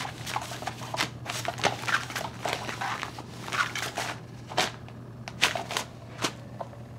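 Nylon skirt of a Cat's Meow motorized cat toy rustling and crinkling in irregular scratchy strokes as a cat paws and presses on it, over a low steady hum.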